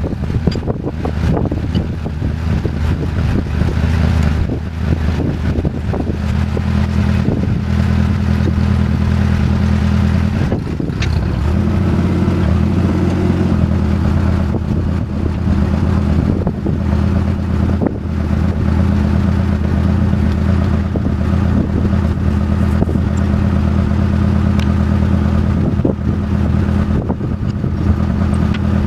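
John Deere 1010 crawler loader's engine running steadily under load, with its pitch shifting slightly a few times, and a few scattered clanks and knocks of metal.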